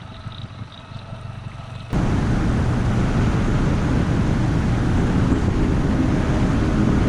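A boat's motor running steadily, then, about two seconds in, an abrupt change to a much louder, even rush of wind and water noise, as of the boat under way at speed with wind on the microphone.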